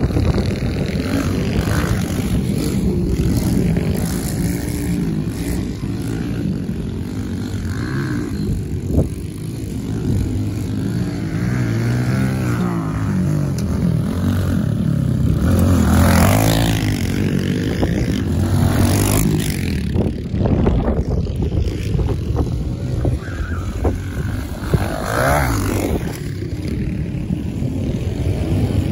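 Kawasaki KLX110 pit bikes, small air-cooled four-stroke single-cylinder engines, racing around a dirt track. The engines rev up and back off over and over as the riders throttle through turns and over jumps.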